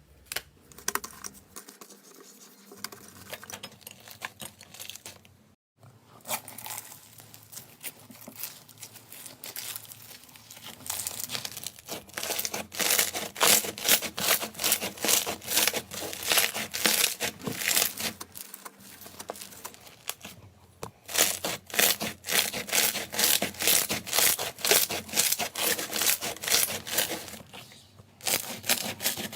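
Slime being squeezed and kneaded by hand, making rapid sticky clicks and pops, several a second. Quieter at first, then louder, with a few short pauses.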